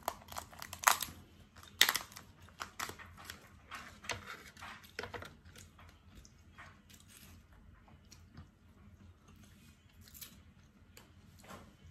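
Steamed crab shell cracking and snapping as it is broken apart by hand, mixed with tearing and chewing of the crab meat. The sharp cracks come thick and loud over the first five seconds, the two loudest about one and two seconds in, then thin out to a few soft clicks.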